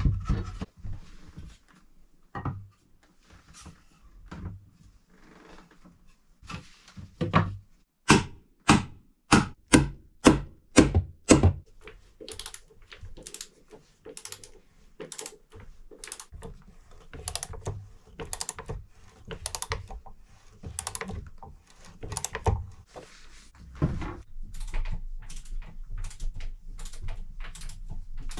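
Wood being struck in a small wooden room: a run of about eight loud, evenly spaced knocks around a third of the way in, followed by many lighter, quicker taps. Near the end a steadier low noise joins the ticking.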